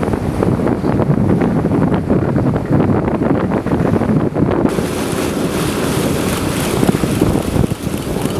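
Wind buffeting the microphone on an open boat at sea, with a rumbling wash of waves and water against the hull. The noise turns brighter and hissier about halfway through.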